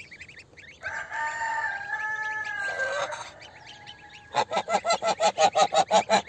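A rooster crows once, a long call about a second in that drops in pitch at its end. From about four seconds in a domestic goose gives a rapid run of honks, about six a second, while newly hatched goslings peep faintly.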